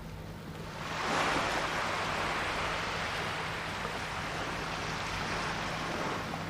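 Sea waves breaking and washing up a pebble beach: a steady rushing surf that swells up about a second in.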